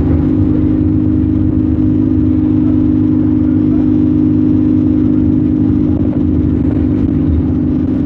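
ADL Enviro 200 Dart single-deck bus driving along, its engine giving a steady drone with road rumble, heard from inside the bus.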